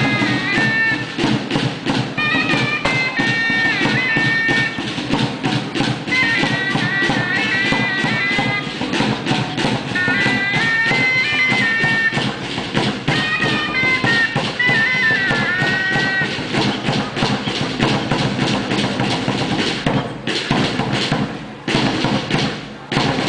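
A chirimía, a shrill double-reed shawm, plays a wavering melody over fast, steady drumming. The melody stops about two-thirds of the way in, and the drumming carries on alone, breaking into separate strokes near the end.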